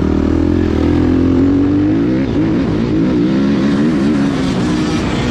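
Motocross bike engine running under throttle, its pitch climbing steadily for about two seconds, then rising and falling over and over as the throttle is worked along the dirt track.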